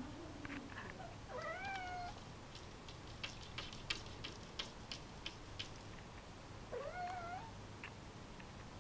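Ragdoll cat meowing twice, each meow rising in pitch and then holding, which the owner takes for jealousy at getting no attention. Between the two meows comes a quick run of sharp clicks.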